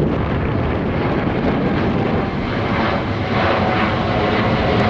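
Boeing 777's twin jet engines climbing out after takeoff: loud, steady jet noise, with a faint steady whine coming in after about three seconds.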